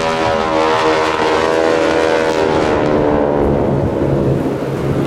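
A formation of propeller-driven piston airplanes passing low overhead: a loud engine and propeller drone whose pitch falls as they go by, settling into a lower, steadier drone near the end.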